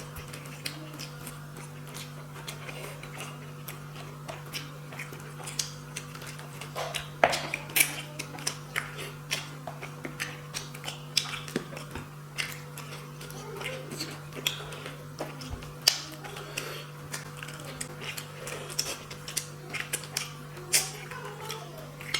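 Close-up eating sounds: irregular wet smacks and clicks of chewing rice and fish curry, picking around fish bones, over a steady low hum.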